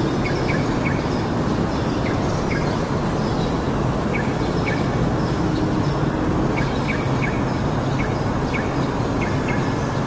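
Yellow-vented bulbul giving scattered short, high chirps, some in quick pairs, over a loud steady low rumble of background noise.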